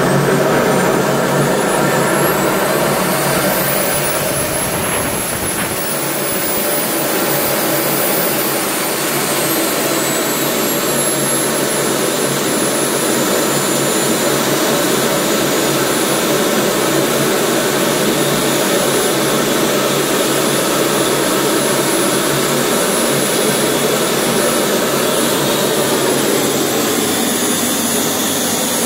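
AMT Pegasus model turbojet engine running with a high whine over a steady roar; the whine climbs in pitch about two to four seconds in as the turbine spools up, then drops back around eight to ten seconds in and holds steady.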